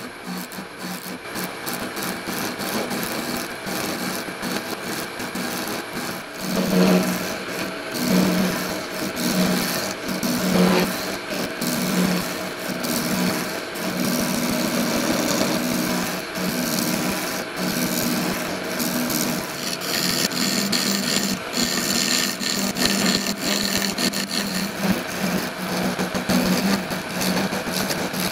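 Wood lathe spinning a blank of epoxy-soaked craft paper (paper micarta) while a sphere-jig cutter scrapes shavings off it: a continuous rasping cut that swells and eases unevenly.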